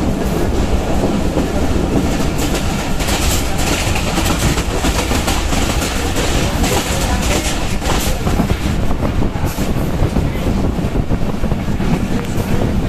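Passenger train running at about 90 km/h, heard from an open coach doorway: a steady loud rush of running noise, with the wheels clattering over the rail joints.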